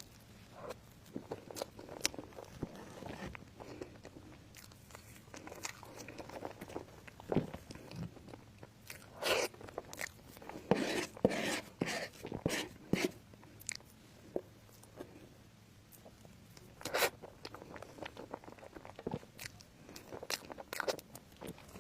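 Close-miked eating: crisp bites and crunchy chewing of food, with a cluster of loud crunches in the middle and another single loud crunch a few seconds later.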